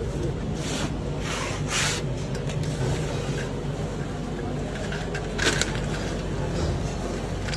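Hands scraping and shuffling sugar drops and powder in a metal tray and across a dusted sheet, with brief scraping noises about a second in and again past the middle, over a steady low hum.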